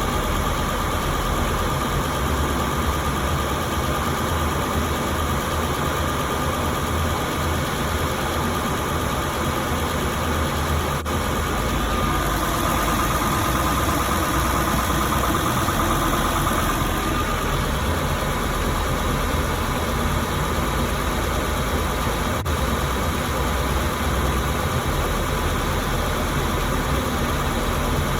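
7.3-litre International V8 diesel engine idling steadily, with a thin steady whine above it that grows a little stronger about halfway through.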